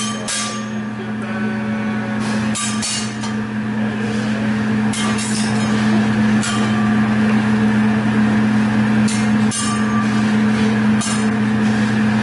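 Hibachi chef's metal spatula and fork clanking and tapping against each other and the steel griddle in short rattling clusters every couple of seconds, over a steady low hum.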